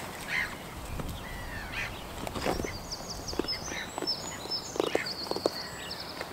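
Goats jostling on grass: scattered light steps and knocks, with a small bird chirping a quick run of high notes from about three seconds in.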